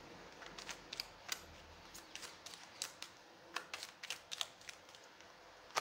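Deck of oracle cards being shuffled by hand: a run of faint, irregular card clicks and slaps.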